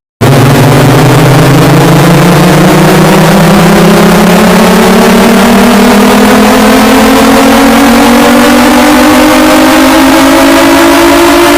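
Loud, heavily distorted electronic alarm-style drone: several buzzing tones together, rising slowly and steadily in pitch, starting abruptly after a moment of silence.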